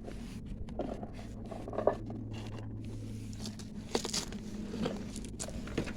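Small clicks, rustles and scrapes of parts being handled, over a steady low hum, with a sharper knock just before two seconds in.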